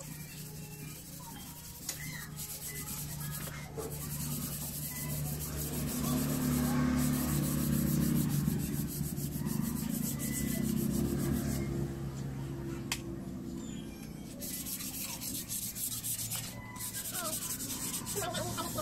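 Continuous rubbing and wiping, a cloth being worked over car surfaces during cleaning, growing louder through the middle stretch.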